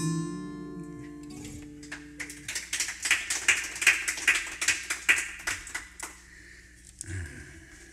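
The final chord of an acoustic guitar ringing out and fading over the first couple of seconds, followed by a few seconds of clapping that stops about six seconds in.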